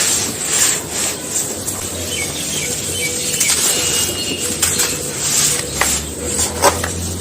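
Dry, sandy, grainy crumbly material being crushed and crumbled, giving a run of irregular soft crunching and gritty crackles.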